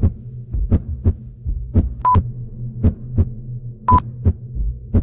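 Heartbeat sound effect, a double thump about once a second over a steady low hum, with a heart monitor's short high beep twice, about two seconds in and again near four seconds.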